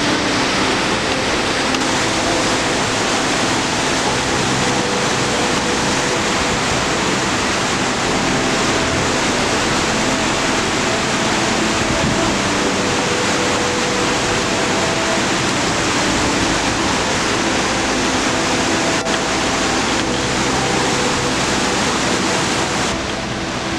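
Loud, steady rush of fast-flowing water, a mountain stream or cascade close by.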